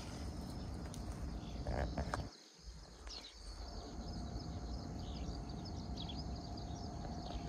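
Wind buffeting the microphone in a low, uneven rumble that briefly drops out about two and a half seconds in, with faint high chirps from birds or insects over it.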